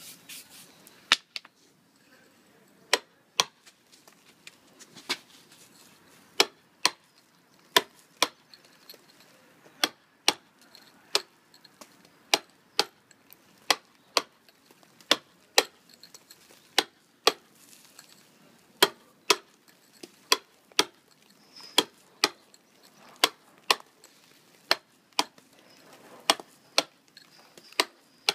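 Mallet striking a steel mason's chisel on sandstone, dressing the stone's face: sharp, separate knocks about one to two a second at an uneven working pace, some coming in quick pairs.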